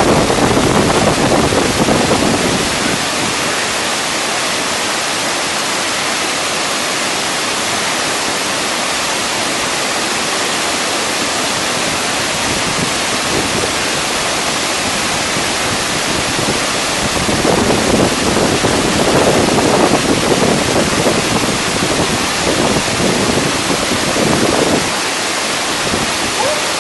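Waterfall pouring, a continuous rushing of water that swells a little louder near the start and again for several seconds in the last third.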